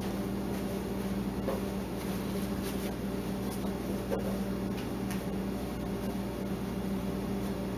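A steady low hum, with faint rustles and small clicks as cotton upholstery fabric is pulled and tucked around the chair seat. No staple gun is fired.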